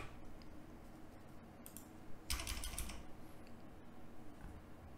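A few scattered computer keyboard keystrokes, with the loudest short cluster about two and a half seconds in.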